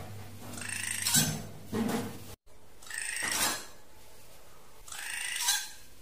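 Drongo calling: a run of harsh calls, three longer ones about two seconds apart, each swelling to a sharp, loud end. The recording drops out briefly between the second and third.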